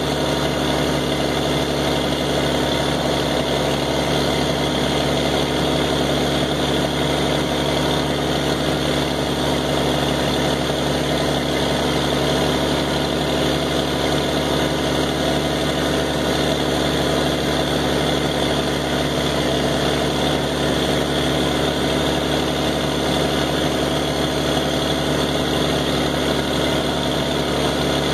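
Engine of an engine-driven pump running steadily under automatic throttle control at about half throttle, holding a constant speed while the pump builds pressure toward its set target.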